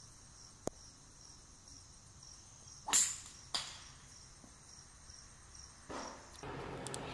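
A golf club swung at a ball about three seconds in: a quick swish and smack, followed half a second later by a second sharp knock. Crickets chirp faintly and steadily throughout.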